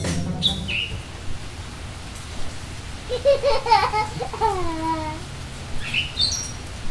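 Sound-design outro: a steady rain-like hiss, with short high chirps near the start and near the end. About three to five seconds in comes a babbling, voice-like run of falling-pitched sounds.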